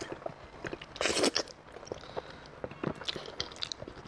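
Close-up eating sounds: biting into and chewing a braised pork hock, with many short wet clicks and smacks and one louder, longer bite about a second in.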